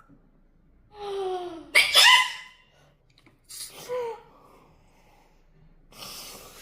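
A sneeze: a drawn-out, falling 'aah' that ends in a loud, sharp 'choo' about two seconds in. A smaller sneeze-like call follows about four seconds in, and a short hiss comes near the end.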